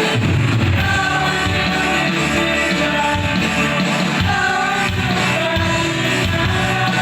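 Rock-style band music with a singing voice, playing steadily throughout.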